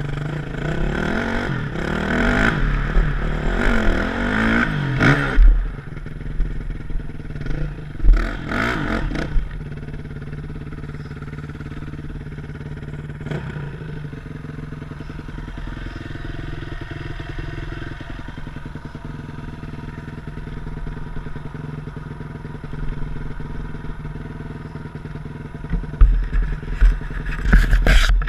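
2007 Yamaha YZ450F dirt bike's four-stroke single-cylinder engine revving up and down under way for the first few seconds and briefly again around eight seconds in, then idling steadily, with a few sharp throttle blips near the end.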